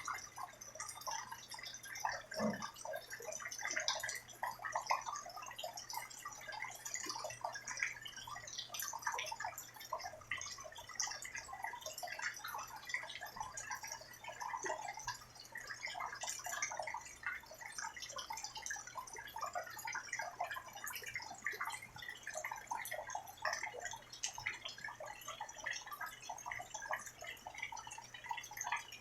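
Rain falling steadily, heard as a dense, irregular patter of drips.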